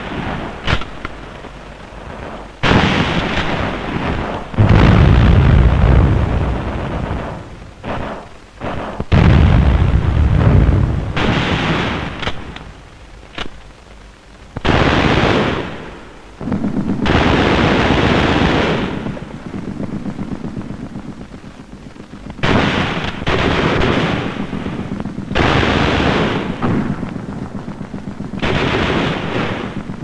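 Military live-fire exercise: repeated gunfire, with stretches of rapid machine-gun rattle, and heavy booms about five and nine seconds in.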